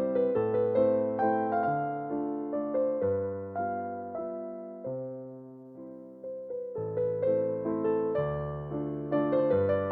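Background music: a gentle electric piano melody with notes struck and left to fade, growing softer for a moment in the middle before picking up again.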